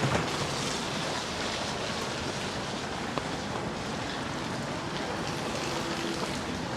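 Steady rain in a wet city street, an even hiss with a brief louder swell at the start and a single click about three seconds in.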